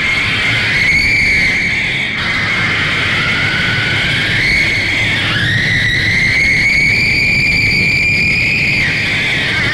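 A loud, shrill, screeching tone held over a dense rumbling din, its pitch bending slowly, dipping about halfway through and then climbing again before it breaks off near the end. It is a soundtrack noise effect.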